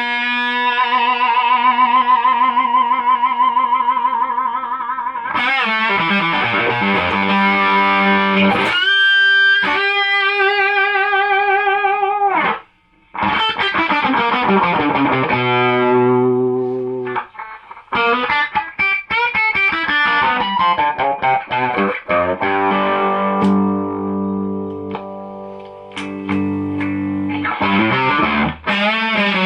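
Electric guitar played straight into a single-ended EL84 valve amplifier with a 6N3P preamp tube, with no effects in between, heard through its 12-inch speaker. Held lead notes, some with vibrato, and chords, with a short break about 13 seconds in.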